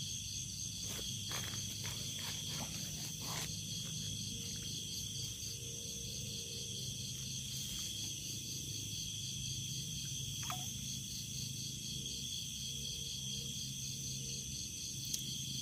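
Night chorus of crickets and other insects, a steady trilling at several high pitches, one of them pulsing rapidly. A few faint clicks come in the first few seconds.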